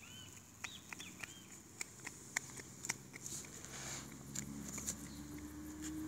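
Small birds chirping in short arched calls near the start, over a steady high insect buzz, with a run of sharp clicks and ticks. A low hum comes in and rises slowly near the end.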